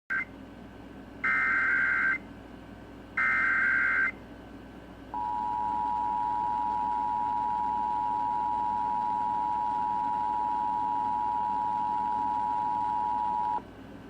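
Emergency Alert System alert opening: three short bursts of warbling digital SAME header data, the first cut off at the start, then the two-tone attention signal held steady for about eight seconds before stopping sharply. Together they announce a Required Monthly Test.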